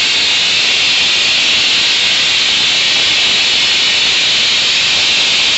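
Compressed gas hissing steadily from the cylinder supply into a large meteorological balloon as it is inflated.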